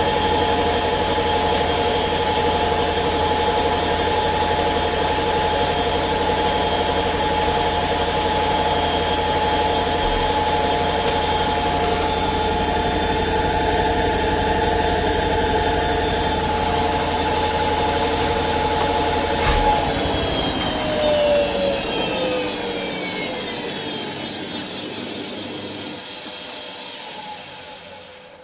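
Faure FWF10141PS front-loading washing machine on its 800 rpm spin cycle: the drum spinning at speed with a steady whine of several tones. About two-thirds of the way through there is a click, then the whine falls in pitch and fades as the drum spins down.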